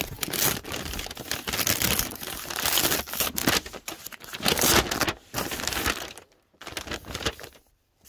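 Plastic mailer bag crinkling and rustling against a cardboard shipping box as it is lifted out and handled, in irregular bursts that thin out near the end.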